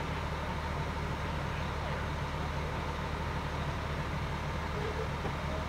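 Steady low engine hum of vehicles idling, an even drone with no change.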